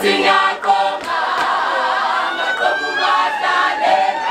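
A group of women's voices singing together in Zulu traditional style, unaccompanied, with one high voice sliding upward in pitch about halfway through.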